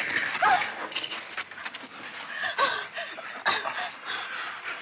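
Steady rain hissing, with a person's short, wavering cries breaking in three or four times.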